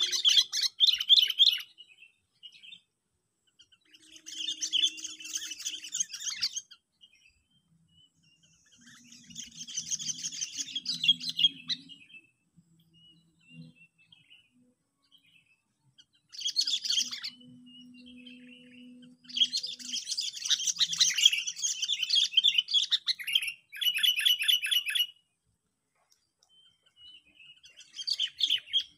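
Sooty-headed bulbul (kutilang) decoy bird calling: about six bouts of fast, chattering song, each a second to several seconds long with short pauses between, the longest near the end.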